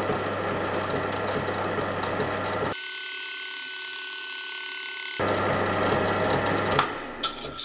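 Metal lathe running with its spindle in reverse at about 140 RPM, a steady hum and mechanical noise, while a hardened tool-steel negative profile in the tool post slowly form-cuts a timing-belt-pulley profile cutter. For about two seconds in the middle the sound thins to a steady whine, and a few light metallic clinks come near the end.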